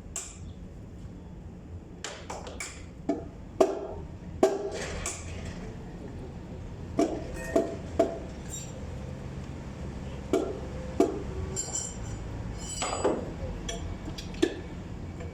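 Hand tools clinking and knocking against metal engine parts while a truck engine's flywheel housing is being removed: about a dozen sharp, irregular metallic strikes, some ringing briefly, over a low steady hum.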